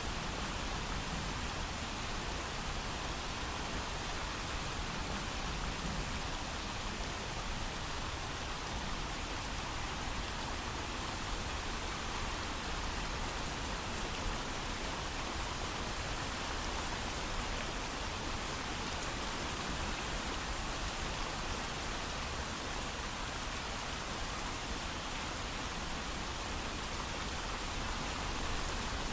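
Steady heavy rain falling with no thunder: a constant, even hiss of rain.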